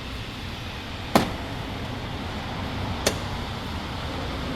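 Two sharp snaps about two seconds apart, the first the louder: plastic clips of a Toyota Tacoma TRD grille popping free as the grille is pulled off, over a steady low background hum.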